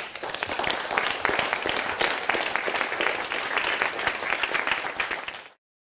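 Audience applauding, a dense patter of many hands clapping that cuts off suddenly about five and a half seconds in.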